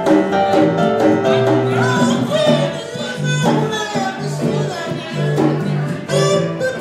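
Live band playing an upbeat Latin-style tune, with conga drums, a stepping bass line and held melody notes over it.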